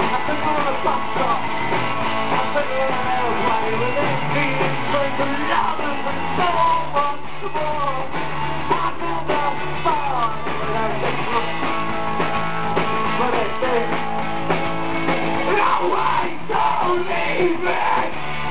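Live rock band playing: electric guitars, bass and drums, with a singer singing into a microphone.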